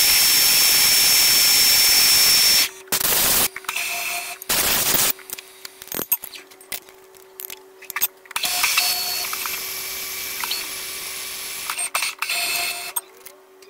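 A milling machine's end mill cutting aluminium: a loud steady hiss with a high whine that stops suddenly about two and a half seconds in. After that comes a steady low hum broken by short bursts of noise and clatter, with another stretch of steady machine noise in the second half.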